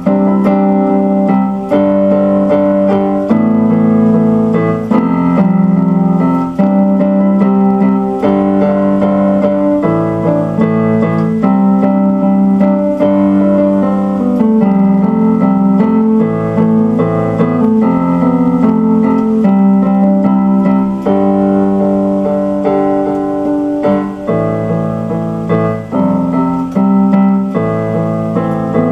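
Electronic keyboard played with a piano sound: a run of sustained chords that change every second or two.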